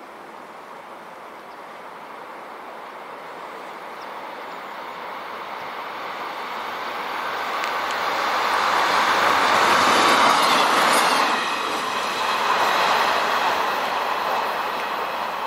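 PESA 620M diesel railbus passing by: its engine and wheel-on-rail noise grow steadily louder as it approaches, peak as it goes past about ten seconds in, then fade as it runs away.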